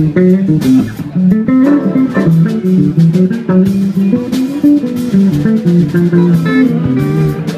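Electric bass guitar playing a funk solo, a quick run of plucked notes, over a drum kit.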